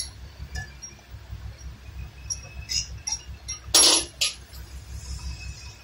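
Light metallic clinks of brake parts being handled at a wheel hub while a new brake disc is fitted, with a short, louder burst of scraping noise about four seconds in and a second, smaller one just after.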